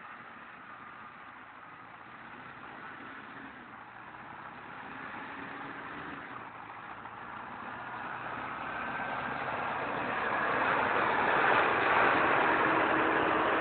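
Caterpillar 120G motor grader's diesel engine running, growing steadily louder over the second half as the machine approaches.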